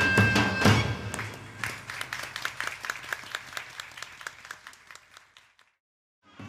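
Live Persian folk music stops on a held horn note over a large double-headed drum, and a small crowd claps in applause that thins out and fades over a few seconds. After a brief silence, music starts again right at the end.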